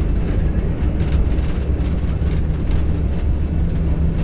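Airbus A320 accelerating on its takeoff roll at takeoff thrust, heard inside the cockpit: a loud, steady low rumble of the engines and the wheels running over the runway.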